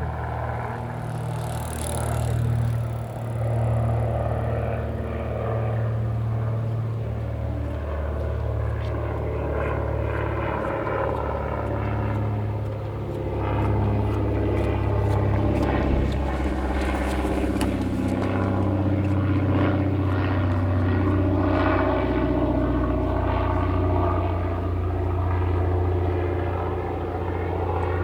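Urban canal-side ambience with a steady low engine rumble from passing motor traffic, and scattered light clicks and knocks.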